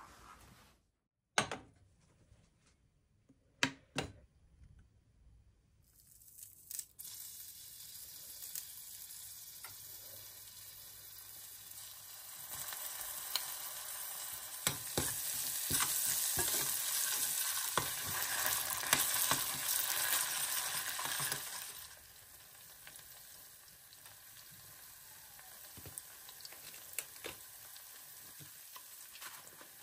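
A few glass clinks from mugs being handled. Then oil starts sizzling in a small stainless steel saucepan as pressed garlic fries in it. The sizzle gets louder about halfway through and drops back later, with a spoon stirring spiced red paste in the pan near the end.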